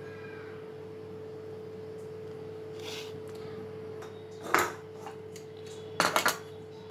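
Kitchen utensils knocking against ceramic dishes: one sharp knock about four and a half seconds in, then three quick knocks about six seconds in, over a steady hum.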